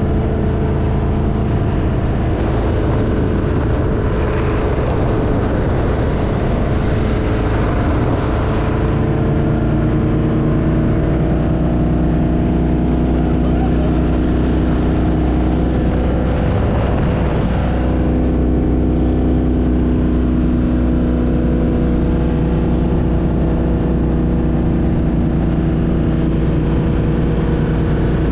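Donzi 18 speedboat's NASCAR-built V8 engine running steadily under way, its pitch holding level and shifting slightly a couple of times.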